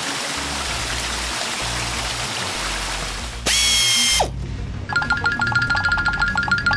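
Cartoon car-wash sound effects over background music. First a steady hiss of water spraying from the nozzles, then a loud high tone lasting under a second that slides downward at its end. Then a fast mechanical ticking with a steady buzz as the overhead lamp lowers.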